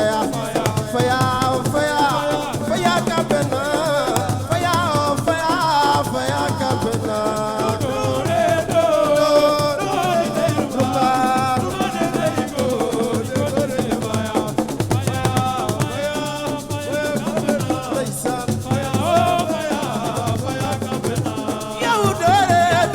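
Assiko music: a singing voice over drums and a shaker rattle, with a steady, dense beat.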